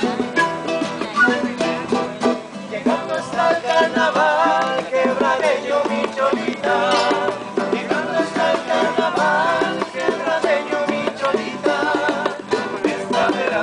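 Live acoustic folk music from a small group: plucked strings, among them a wooden harp, over hand-drum strikes.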